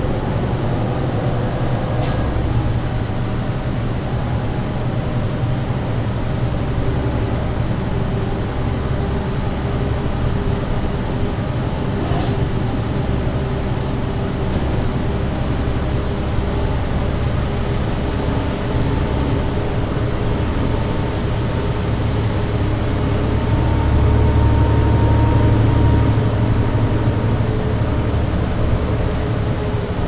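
Cabin sound of a 2009 New Flyer D40LFR transit bus under way: the Cummins ISL diesel engine drones steadily over road noise, with a thin whine from the MAN drive axle, and the sound swells for a couple of seconds near the end. Two sharp rattle clicks come early on.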